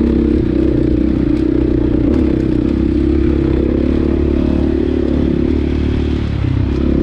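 Husqvarna FX 450's single-cylinder four-stroke dirt bike engine running steadily under throttle, its note dropping briefly about six seconds in as the throttle eases.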